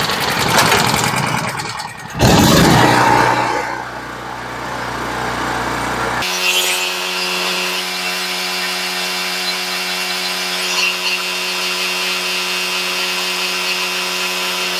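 Champion 4000-watt portable generator's single-cylinder engine being started, the engine catching and running roughly at first. About six seconds in it changes suddenly to a steady, even drone at constant speed.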